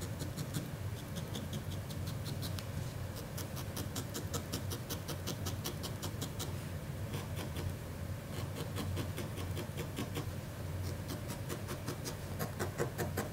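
Barbed felting needle stabbing repeatedly into wool, quick light pokes several a second with a couple of short pauses, over a low steady hum.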